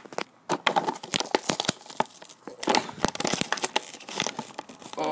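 Plastic and cardboard toy packaging being handled, crinkling and crackling in a quick, irregular run of sharp clicks.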